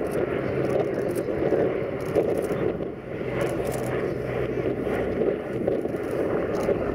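B-17 Flying Fortress flying past, its four Wright R-1820 Cyclone radial engines running steadily with a low hum.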